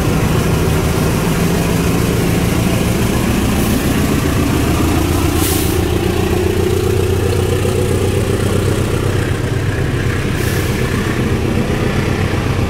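KAI CC 206 diesel-electric locomotive's engine running under the train as it moves along the platform, its pitch rising for a few seconds midway.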